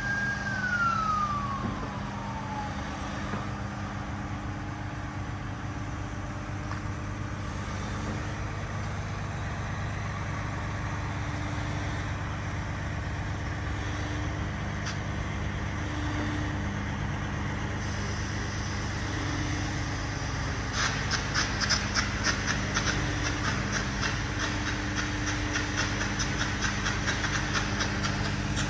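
Cat 349 hydraulic excavator's diesel engine running steadily under load as the boom and bucket are worked. A whine falls in pitch over the first couple of seconds, and from about two-thirds of the way through a fast metallic clatter joins the engine.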